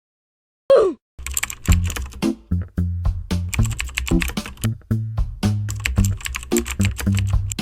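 Music with a bass line of changing low notes under a dense run of rapid, sharp typing-like clicks, starting out of silence with a short falling swoosh about a second in.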